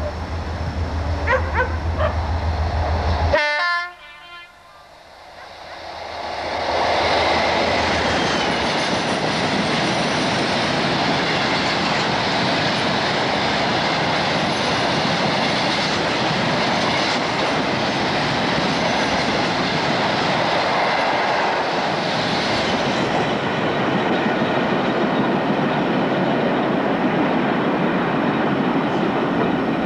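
Diesel-hauled coal train of merry-go-round hopper wagons passing close by. A loud, steady noise of wagon wheels on rail builds up over a couple of seconds from about six seconds in and carries on evenly.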